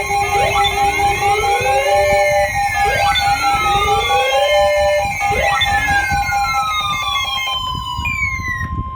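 Loud layered electronic siren-like alert tones: a rising wail repeats about every two and a half seconds over steady held tones, while long falling sweeps take over in the second half and end on a held tone before cutting off near the end. Alert sound heading an Emergency Alert System flash flood warning.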